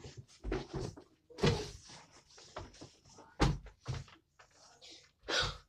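A boy's feet and body knocking and thumping against a wooden bunk bed as he climbs onto it: about seven separate knocks, the loudest a little way in, midway and near the end.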